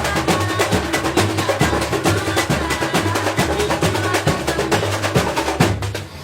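Percussion-driven music with drums and wood-block-like strokes keeping a fast, steady beat over a pulsing bass, stopping shortly before the end.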